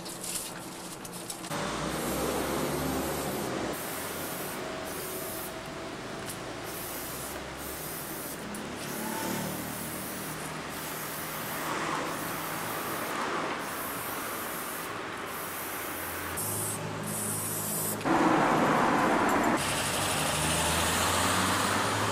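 Aerosol spray-paint can hissing in long bursts with short breaks, over a low hum of street traffic.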